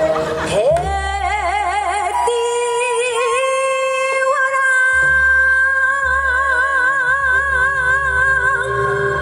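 A woman singing a Korean folk song (minyo) in a gugak style over a backing track with a low bass line. She scoops up into a note about half a second in, then holds long notes with a wide, even vibrato; the last one starts about four seconds in and lasts almost to the end.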